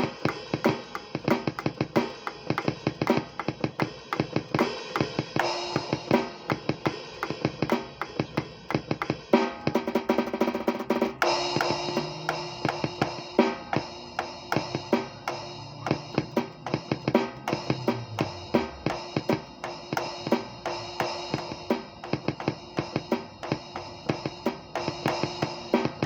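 Drum kit played freely: a steady stream of rapid strikes on kick, snare and toms under ringing cymbals.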